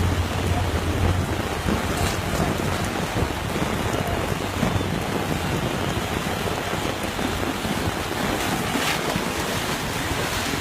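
Heavy rain falling: a steady, dense hiss of water, with a low hum in the first second or so.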